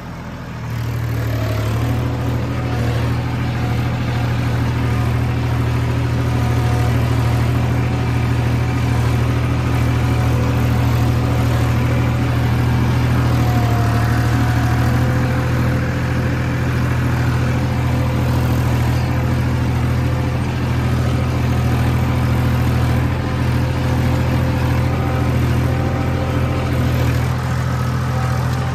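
Massey Ferguson 245 DI tractor's three-cylinder diesel engine working under load, pulling a cultivator in first gear high with the throttle set at about 1600 RPM, heard from the driver's seat. The engine note rises about a second in and then holds steady.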